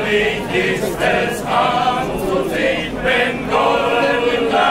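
Male voice choir singing together in several parts, holding sustained notes that move from chord to chord.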